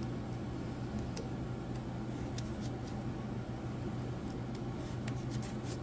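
Knife blade shaving the wooden handle end and wedge flush with the top of a hung axe head, giving a few faint, short scraping ticks. A steady low hum underlies it.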